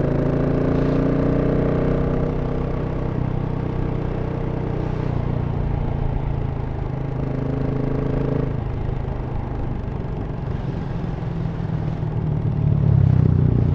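GasGas SM 700's single-cylinder engine through the stock exhaust, its note falling over the first couple of seconds as the bike slows, then running low and steady. It gets louder again about a second before the end.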